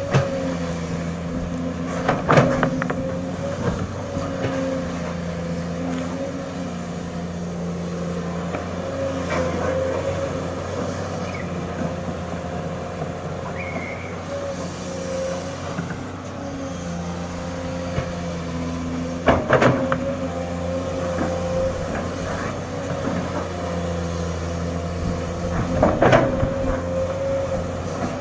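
Sany hydraulic excavator's diesel engine running steadily under a steady whine, its note strengthening and easing as the load changes. Three loud sharp knocks come through, one early, one about two-thirds through and one near the end.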